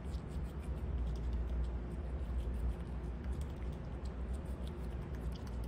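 A fox squirrel chewing a grape held in its paws: many quick, soft, irregular munching clicks over a steady low rumble.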